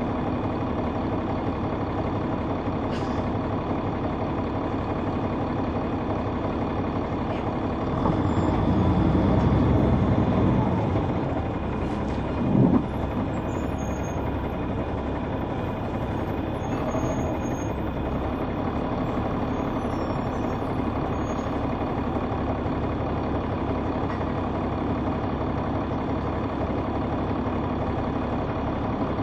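Caterpillar C9 ACERT diesel engine of a 2004 Neoplan AN459 articulated bus, heard from on board, running steadily. The engine noise swells for a few seconds about eight seconds in and then eases, and a brief loud thump comes shortly after.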